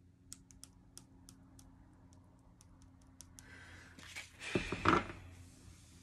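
Tarot cards flicking off the thumb one at a time as a deck is leafed through: a quick run of light, sharp clicks. Near the end a louder rustle and a soft thump as the deck is handled.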